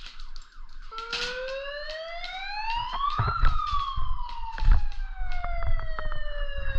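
A siren winds up in pitch for about two seconds, then slowly winds down over about four seconds, with scattered sharp clicks throughout.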